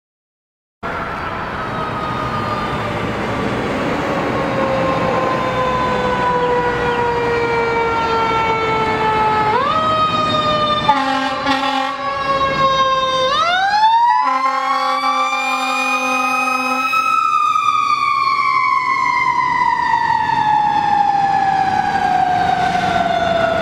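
Fire engine's mechanical siren coasting down in a long, slowly falling wail, spun back up near the middle and then winding down slowly again. Two long air-horn blasts sound near the middle.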